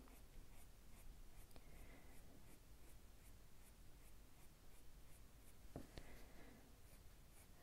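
Faint scratching of a soft-core Prismacolor coloured pencil on paper: short, quick hair strokes at light to medium pressure, about three strokes a second.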